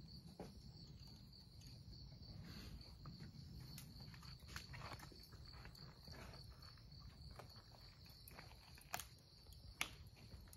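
Crickets chirping in a faint, steady high-pitched pulsing trill, with scattered soft footsteps and clicks and two sharper clicks near the end.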